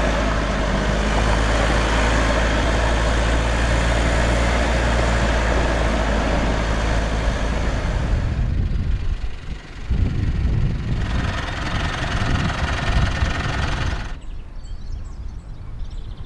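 Pickup truck driving on a rough dirt track: a loud, steady drone of engine and road noise with a low engine hum. About eight seconds in it changes to an uneven, rougher rumble, and near the end it drops to a quieter low rumble with faint bird chirps.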